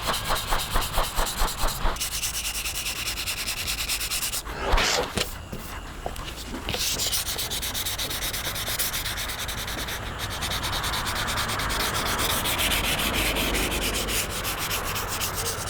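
Sandpaper, 320 grit, rubbing over cured body filler on a car roof panel. It starts with quick back-and-forth strokes, about three a second, then settles into steadier scratching, with one brief knock about five seconds in.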